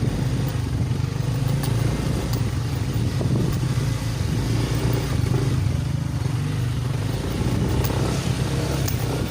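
Motorcycle engine running steadily as the bike is ridden along a rough track, with a few light clicks and rattles.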